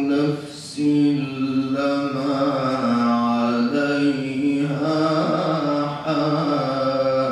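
A man reciting the Quran in the melodic, chanted tajweed style, holding long drawn-out notes with a short pause for breath about half a second in.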